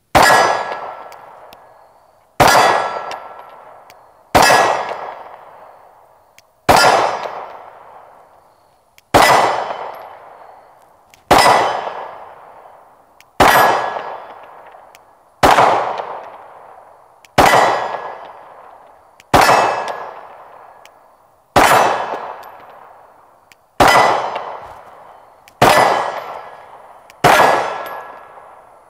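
A 9mm Glock 19 Gen 5 pistol fired in slow, steady single shots, about one every two seconds, fourteen in all. Each shot is followed by the ring of a struck steel target, fading away over the next two seconds.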